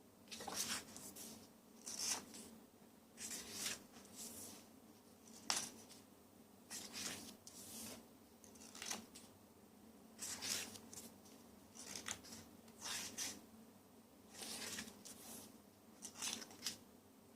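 Paper rustling in about a dozen short, crisp strokes a second or so apart, as of the pages of a photo book being turned one after another.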